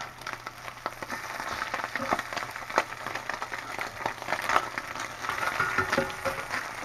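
Slices of Spam frying in a cast-iron skillet, sizzling with a steady crackle and many sharp pops of spattering fat. A slotted metal spatula scrapes and taps against the pan as the slices are pushed around.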